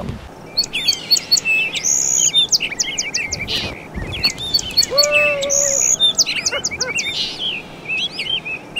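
Songbirds chirping and singing: many quick, high chirps and sweeping whistled notes, with one lower held note about five seconds in.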